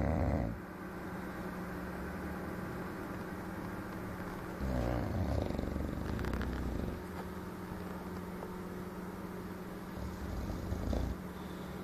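English bulldog snoring in its sleep: one snore trails off at the start, a longer, louder one comes about five seconds in, and a shorter one comes near the end. A low steady hum runs underneath between the snores.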